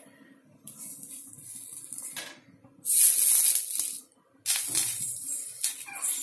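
Hissing from the stovetop where Indian borage leaves heat on a plate over a low gas flame, in three bursts of one to one and a half seconds with sudden starts and stops, the middle one the loudest.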